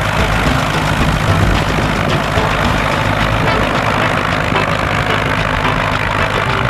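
Piper Cub's air-cooled piston engine and propeller running steadily at low power close by, with a strong rush of propeller wash over the engine's note.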